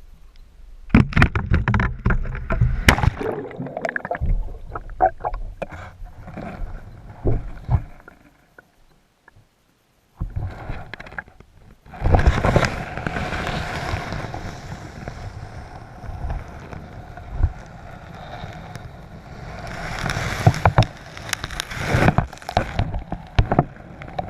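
Water sloshing and gurgling, broken by scattered knocks and thumps, as a magnet-fishing rig is hauled through a weedy river. The sound drops out to near silence for about two seconds around eight seconds in, then the sloshing and knocks resume.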